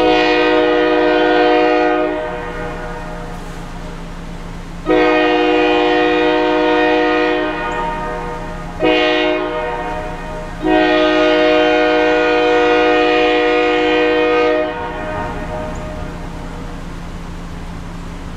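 Diesel freight locomotive's air horn sounding the grade-crossing signal, long, long, short, long, each blast a chord of several notes at once. A steady low drone runs underneath.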